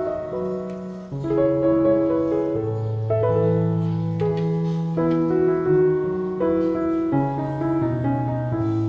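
Background piano music: a slow melody over held bass notes.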